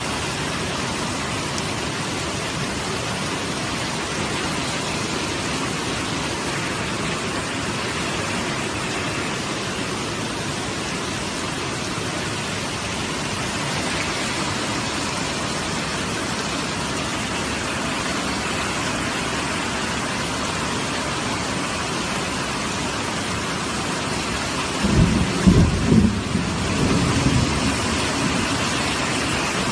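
Steady heavy rain, with a few louder low rumbling thumps about twenty-five seconds in.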